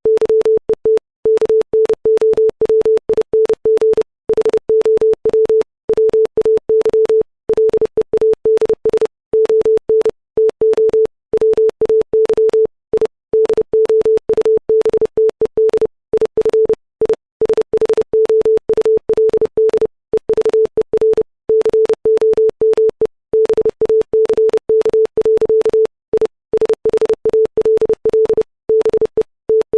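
Computer-generated Morse code: a 440 Hz sine-wave tone keyed on and off in fast dots and dashes at 30 words per minute, with short gaps between letters and words. Each dot and dash starts and stops with a faint click.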